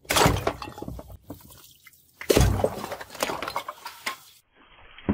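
Water-filled terracotta pots shattering under heavy hammer blows: two crashes, one at the start and one a little over two seconds in, each followed by clattering shards and splashing water.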